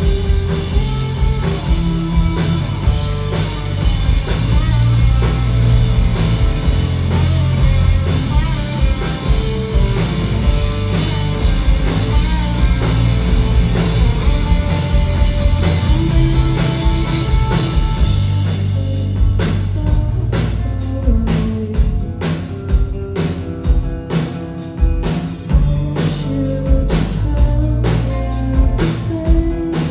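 Live rock band playing loud, with electric guitars, bass and drum kit. From about 19 seconds in, the drum hits stand out more sharply between thinner stretches of guitar.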